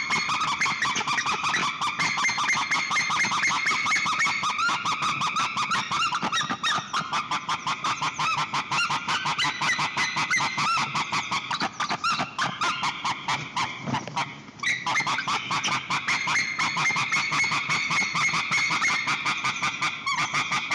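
White-tailed eagles calling: a long, rapid series of repeated high calls, with a short lull about two-thirds of the way through.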